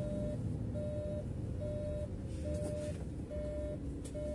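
A Mercedes-Benz bus's turn-signal indicator beeping: one mid-pitched tone switching on and off in even pulses, a little faster than once a second. Under it runs the bus's engine and road rumble in the cab.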